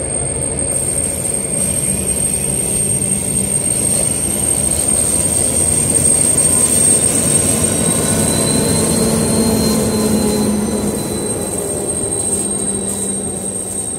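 DR class 132 'Ludmilla' diesel locomotive passing close under power, its diesel engine running with a low rumble and a steady high whine. It grows loudest midway as it goes by and fades toward the end.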